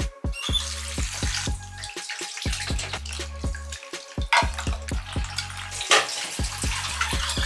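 Kitchen tap running into a stainless steel sink, over background music with a steady beat. Two sharp knocks stand out, the louder about six seconds in.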